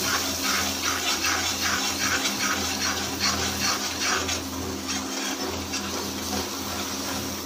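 Semolina sizzling in hot ghee in a frying pan, stirred with a slotted spatula in quick regular strokes, about two to three a second, that ease off after a few seconds.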